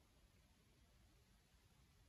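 Near silence, with only a faint low background rumble.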